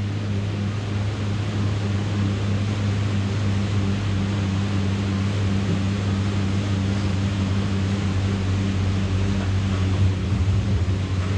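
A steady low hum with an even rushing noise over it, unchanging throughout, like a running machine or fan.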